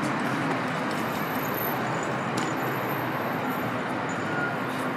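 Steady outdoor city din: a constant wash of traffic noise from the surrounding roads, with one faint sharp tick about halfway through.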